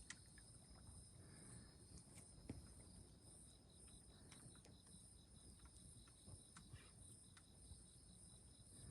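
Faint insects, likely crickets, trilling steadily at a high pitch, with a few soft ticks scattered through.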